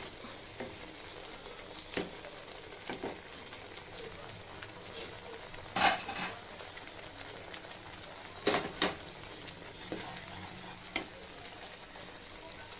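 Wooden spatula stirring and scraping thick tomato masala gravy in a nonstick pan, knocking against the pan now and then, the loudest knocks about six and about eight and a half seconds in. Under it the gravy sizzles and bubbles steadily as it simmers.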